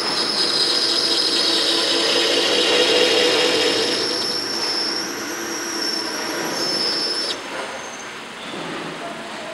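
Small benchtop metal lathe cutting a spinning metal bar: a steady high-pitched squeal from the cut rides over the machine's running noise, then cuts off suddenly about seven seconds in, leaving only the machine running.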